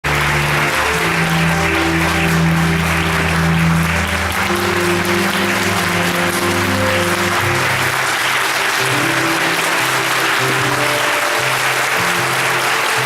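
Theatre audience applauding steadily during a curtain call, over music with slow, held notes.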